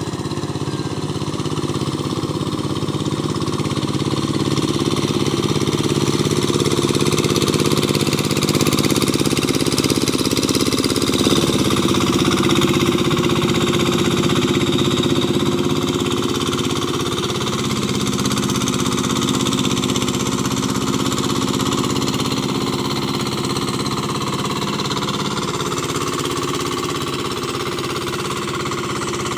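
Small engine of a mud boat (floating rice-paddy tiller) running steadily as it is driven through a flooded paddy, growing louder toward the middle, then easing off.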